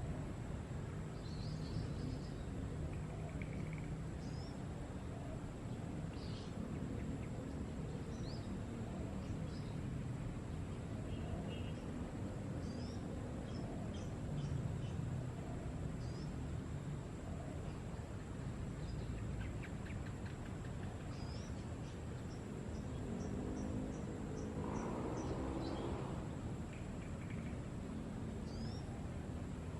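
Wild bird ambience: short, high chirps come and go over a steady hiss and a constant thin, high insect drone. About three-quarters of the way through there is a brief lower, warbling call.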